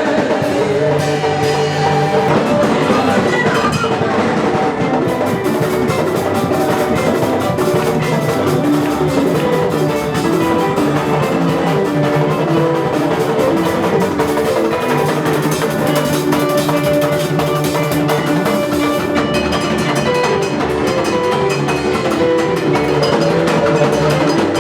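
Live gospel band playing an instrumental passage: drum kit with bass drum and rimshots under keyboard chords, steady and loud.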